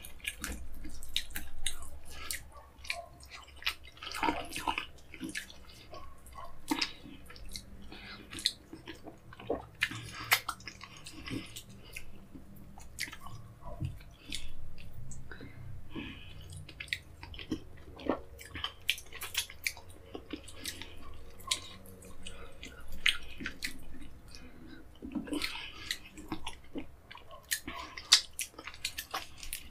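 Close-miked hand eating: chewing with many sharp, irregular wet clicks, and the squish of fingers pulling apart a whole cooked fish in egusi soup.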